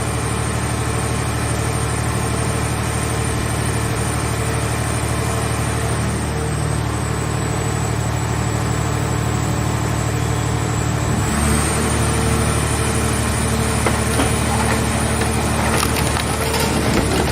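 Hydraulic scrap car-body baler running: its power unit hums steadily, and about eleven seconds in its tone shifts as the press takes up load. From about fourteen seconds irregular cracking and snapping join in, the sound of the car shell being crushed.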